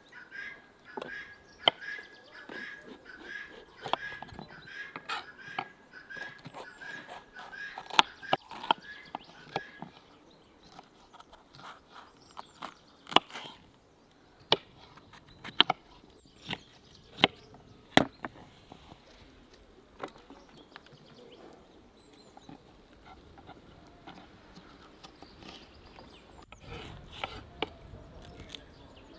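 Kitchen knife cutting a bell pepper on a wooden cutting board: irregular sharp knocks of the blade striking the board. For about the first ten seconds a bird calls over and over, a short high note repeated about twice a second.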